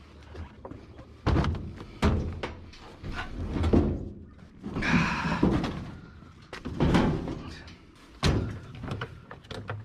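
Heavy metal thuds and clunks from a washing machine being knocked apart for scrap, about six separate blows with a longer rattling clatter midway.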